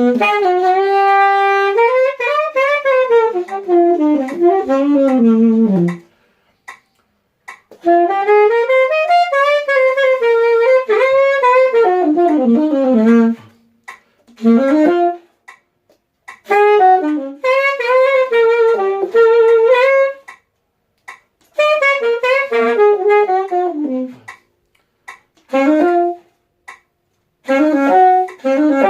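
Yamaha saxophone played solo and unaccompanied: a melodic line in phrases of a few seconds, with complete silences between them.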